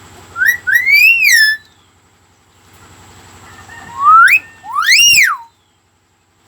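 A pet mimic bird whistling loudly in two phrases, each a short rising note followed by a longer whistle that swoops up and down; the second phrase comes about four seconds in.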